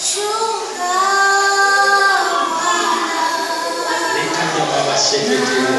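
A girl and women singing together into microphones, with long held notes.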